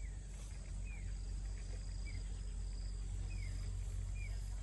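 Outdoor rural ambience: short, falling chirps from a small animal repeating about once a second, with a faint high steady trill and a steady low hum underneath.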